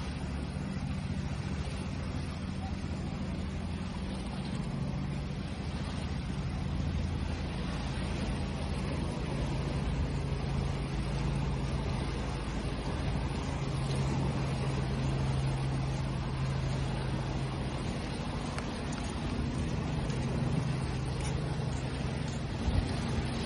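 Waves washing steadily, with a low engine drone running underneath.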